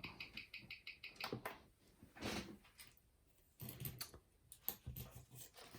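Mechanical wristwatch ticking at about six beats a second on a timegrapher for the first second or so. Then come irregular light clicks and knocks of handling.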